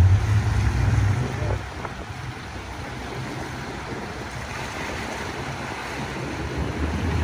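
Wind and water rushing past a moving boat, under a low engine drone. The drone fades about a second and a half in and comes back near the end.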